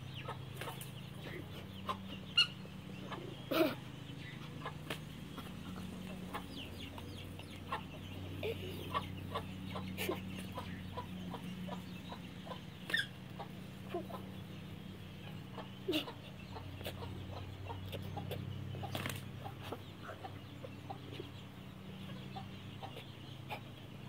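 Chickens clucking in short, scattered calls, a few of them louder and sharper, over a steady low hum.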